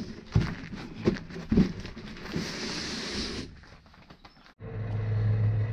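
Brown butcher paper being folded and pressed down on a table: crinkling and dull knocks, with a short burst of papery rustle near the three-second mark. About a second later the sound changes to a steady low hum.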